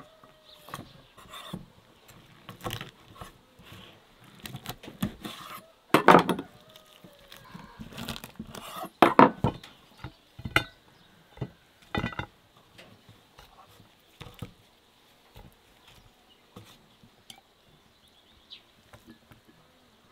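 Dishes and cutlery clinking and knocking as they are handled on a table. The clinks come in a long irregular string, the loudest knocks about six and nine seconds in, thinning out in the second half.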